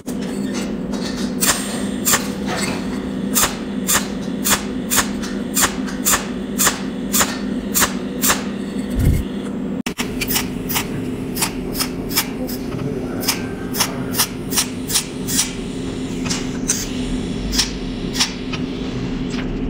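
Cold welding machine firing pulse after pulse through its tungsten-electrode torch onto metal, with filler wire fed into the joint. Each pulse gives a sharp snap, at about two to three a second, over a steady low hum, with a short break about halfway through.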